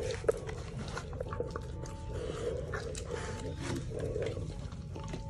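Siberian husky chewing and tearing at a whole roasted chicken: wet mouth noises and many short crackling clicks as the skin rips, with low throaty sounds from the dog now and then.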